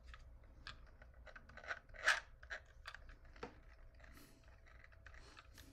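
Small plastic clicks and scraping as a handheld battery sewing machine is handled and a thumb works at its rotary wheel, with two sharper clicks about two and three and a half seconds in.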